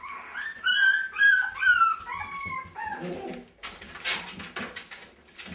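Miniature dachshund puppies whimpering, a run of high cries that fall in pitch, followed by a short burst of noise about four seconds in.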